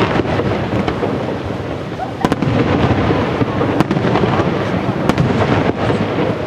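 Aerial fireworks shells bursting overhead: a handful of sharp booms, one every second or so, over a continuous rumble from the display.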